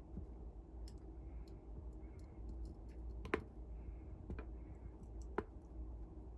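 Scattered light clicks and ticks over a low steady hum, with three sharper clicks about a second apart in the second half, the first of them the loudest.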